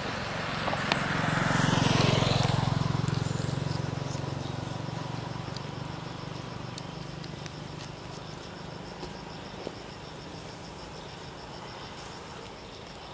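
A vehicle passes on the road: a low engine hum with tyre noise swells to its loudest about two seconds in, then fades away over the next few seconds.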